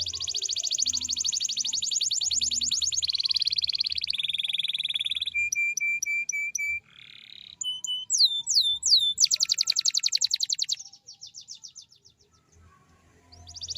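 Domestic canary singing a long, varied song of fast rolling trills, repeated whistled notes and a few downward-sweeping notes, with a short pause near the end before the rolls start again.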